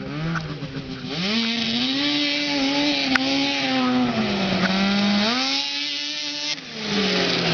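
Arctic Cat snowmobile's two-stroke engine revving hard on a warm-up run across grass. The pitch climbs about a second in, holds high, sags briefly and climbs again, then falls away sharply near the end, leaving a lower steady engine note.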